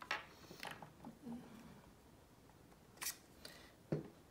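Small plastic clicks and knocks as a GoPro battery and camera accessories are handled and a battery is slotted into place, with a sharp click about three seconds in and a duller knock just before the end.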